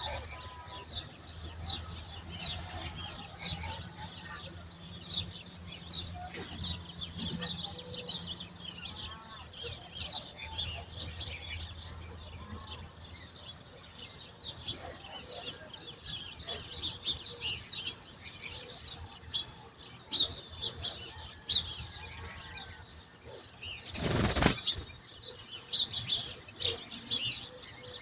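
Many small songbirds chirping continuously in a morning chorus. A faint steady low hum runs under the first half, and a brief loud whoosh comes about 24 seconds in.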